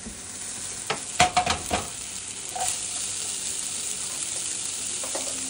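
Corn kernels and melted butter sizzling in a hot frying pan, a steady hiss, with a few sharp clattering knocks of pan and metal about a second in.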